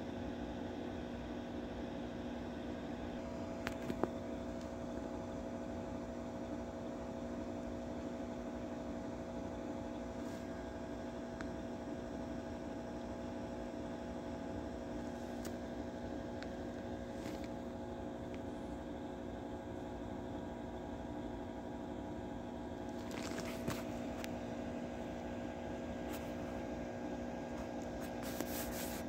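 Steady electrical or fan hum made of several steady tones, with a few faint clicks about four seconds in and again near the end.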